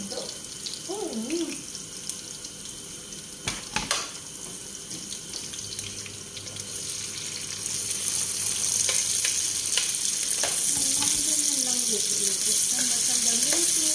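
Food frying in a pan, a steady sizzle that grows louder a little past halfway. Two sharp knocks come about three and a half and four seconds in.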